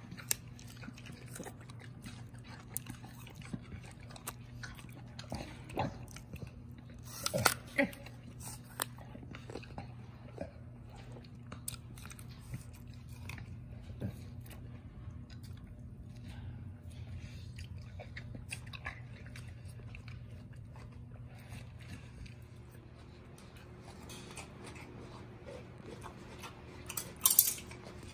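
Chimpanzees chewing and crunching food, a steady run of small crunches and clicks over a low steady hum. Two louder sharp noises come about seven seconds in and again near the end.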